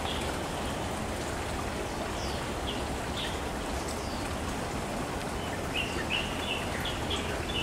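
Steady rush of flowing stream water, with short high bird chirps scattered over it, several in quick succession near the end.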